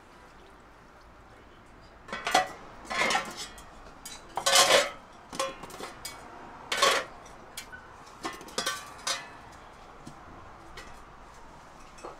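Dishes and metal utensils clattering: a run of knocks and clinks starting about two seconds in, loudest near the middle, then thinning out.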